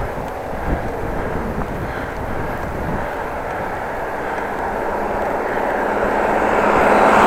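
Steady wind and road noise from riding a bicycle, with no squeal from the bike. Near the end a motor vehicle's engine hum grows louder as it comes closer.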